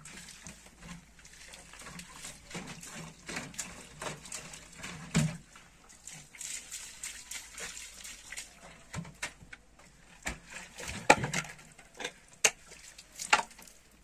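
Liquid poured and sloshing out of a plastic jerrycan, with a shovel scraping and knocking in wet soil; a few sharp strikes near the end.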